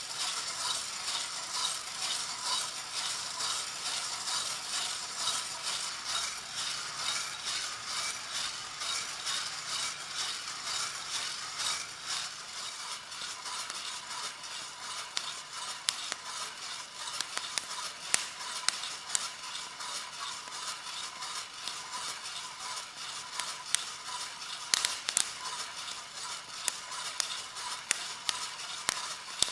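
Coffee beans tumbling and rattling inside an Aubercraft hand-cranked stainless mesh drum roaster as it is turned over a gas flame, a dense steady patter of small ticks over a steady hiss. Sharper single clicks stand out from about the middle on.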